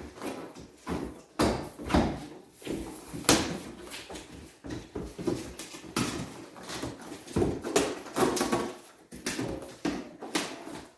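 Irregular thumps, knocks and scraping of a hard-shell double bass travel case being shifted and wedged into a tight space in a car.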